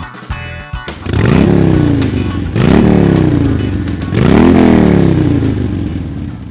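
Harley-Davidson V-twin motorcycle engine revved three times, each rev climbing quickly and then falling back, loud and sustained; music plays for about the first second.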